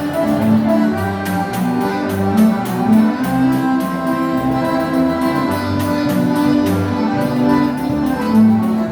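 Instrumental passage of live gaúcho dance music: sustained melody notes over a bass line and a steady beat.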